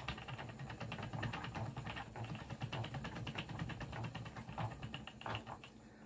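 Wooden spinning wheel running with its flyer turning as yarn is plied, its mechanism making a fast, steady run of light clicks.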